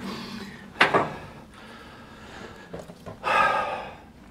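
A man's wordless vocal sounds: a sharp breath about a second in, then a short hum-like voice sound near the end.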